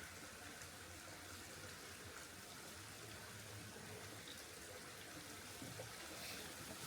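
Faint, steady trickle of spring water flowing over the ground.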